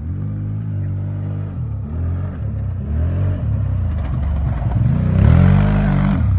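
Quad ATV engine revving up and easing off again and again as it drives over rough sandy ground toward and past, growing louder, loudest as it passes close about five seconds in with a burst of rushing noise.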